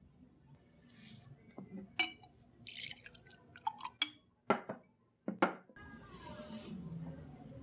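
Liquor poured from a cut-glass decanter into a glass tumbler: a short splashing pour and several sharp clinks of glass on glass.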